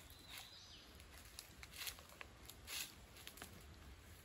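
Quiet woodland: a short, thin, high bird call about half a second in, and a few soft rustles, the loudest about two and three seconds in.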